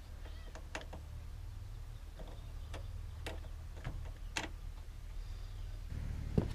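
Scattered sharp clicks and light knocks as a portable 12V air compressor's power leads and battery clamps are handled at a truck battery, over a steady low rumble that grows louder near the end, where the sharpest knock falls.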